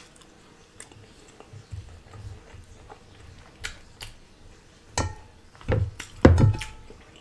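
Quiet chewing of a mouthful of food close to the microphone, then a metal fork clinking against a ceramic serving dish a few times in the second half, the loudest clinks ringing briefly.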